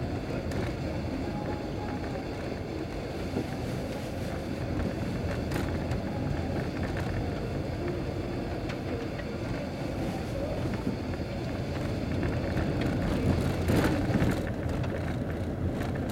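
Car driving on a loose gravel dirt road, heard from inside the cabin: a steady low rumble of tyres and engine, with a few sharp knocks about a third of the way in and again near the end.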